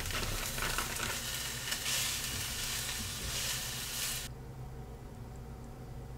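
Chow mein noodles and vegetables sizzling in a hot skillet as they are tossed with a wooden spoon. The sizzle stops abruptly about four seconds in.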